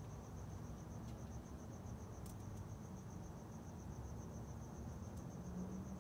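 Crickets chirping in a steady, rapid, high-pitched pulse over a low background rumble.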